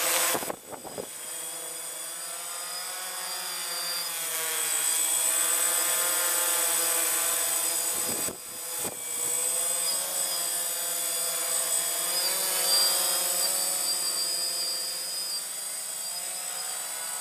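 DJI Phantom FC40 quadcopter's electric motors and propellers buzzing steadily as it hovers close by, the pitch wavering slightly as the motors adjust. The sound breaks off briefly twice, near the start and about eight seconds in.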